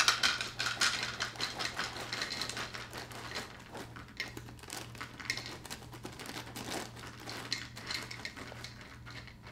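Small waffle-shaped cereal pieces (Eggo Blueberry Waffle cereal) poured from the box's liner bag into a bowl: a rapid clattering patter of pieces hitting the bowl and each other, heaviest in the first second and thinning to a lighter trickle as the pour goes on.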